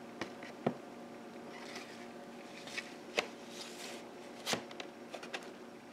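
Handling noise: a few light clicks and knocks, the strongest about four and a half seconds in, with soft rustling, over a faint steady hum.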